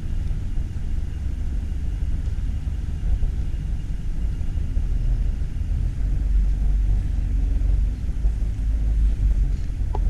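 Outdoor ambience dominated by a steady low rumble, with no voices.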